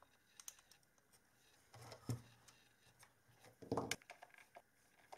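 Faint clicks and light knocks of small parts being handled: a plastic case, screws and a screwdriver. The two louder knocks come about two seconds in and just before four seconds.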